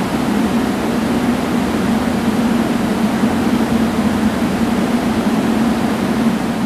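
JR 415 series electric multiple unit running, a loud steady rumble with a constant low hum.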